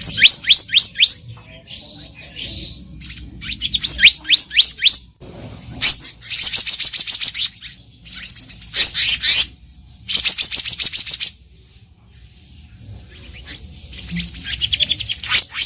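Black-naped monarch singing: rapid series of sharp, rising whistled notes in bursts of one to two seconds, repeated about six times with short pauses between.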